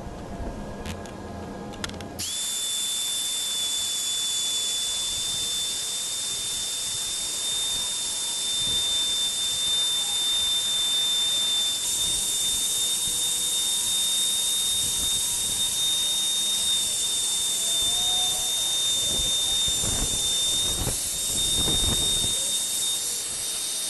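Handheld wood router running, a steady high-pitched whine with hiss that starts about two seconds in, as it routes letters freehand into a lumber sign board.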